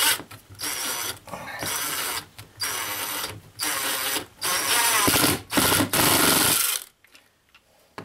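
Cordless drill driving a long screw through drywall in a series of short bursts, its motor whining up at the start of each burst; the sound stops about seven seconds in. The screw is running into open air behind the drywall.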